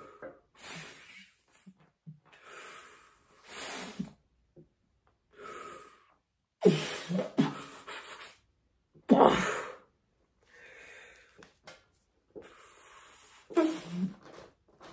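A man breathing hard from effort during a set of one-arm overhead dumbbell triceps extensions: forced exhalations and strained huffs, one every second or two. The loudest come about seven and nine seconds in.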